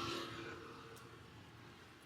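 A passing motor vehicle's engine fading away over the first second, leaving quiet street background with one faint click about a second in.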